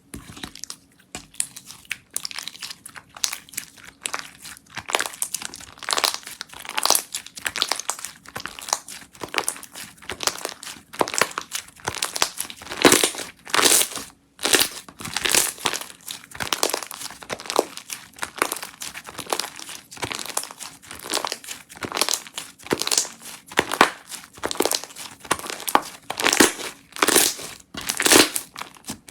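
Slime being squeezed, stretched and pressed by hand, giving dense, irregular crackling and crinkling sounds throughout.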